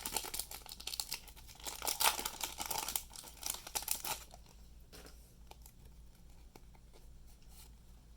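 Crinkly foil wrapper of a Pokémon trading card booster pack being torn and crumpled open, busy for about four seconds; then only faint, sparse ticks of the cards being handled.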